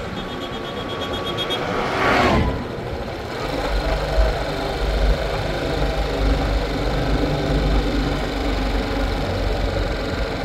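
Royal Enfield Classic 350 single-cylinder engine running on the move, with wind rumbling on the microphone. About two seconds in, an oncoming vehicle passes with a short rush that drops in pitch.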